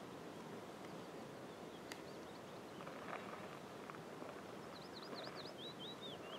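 Faint birdsong: high, quick chirping notes, with a run of rapid rising-and-falling notes near the end, over quiet open-air background. One faint click about two seconds in.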